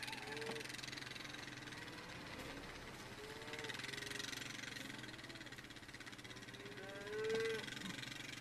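Cattle calling in short bawls, several times, the loudest about seven seconds in, over the steady low hum of a vehicle engine idling.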